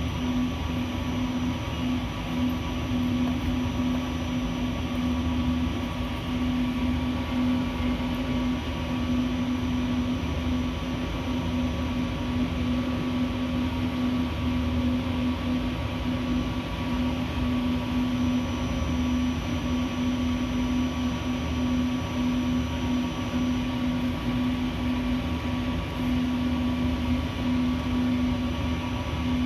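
Steady mechanical hum with a constant low drone and fainter steady higher tones, unchanging throughout.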